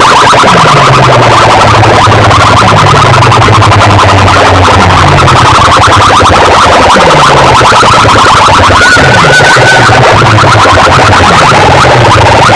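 Very loud DJ music played through a large sound-box system, driven near full scale. A falling bass drop repeats about every second and a quarter under a fast, buzzing electronic pattern.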